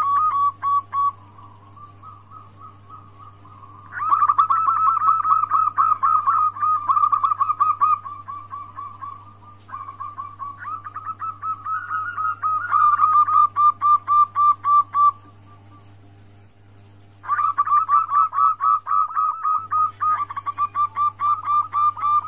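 Female zebra dove (perkutut) calling to a male: bouts of rapid, rolling cooing notes lasting several seconds each, four bouts in all. A faint high ticking repeats two or three times a second behind it, over a low steady hum.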